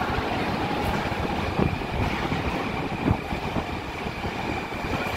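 Moscow Metro train rumbling through the station, heard from the passage leading to the platform, a steady low rumble with a thin high tone growing toward the end and a couple of short knocks.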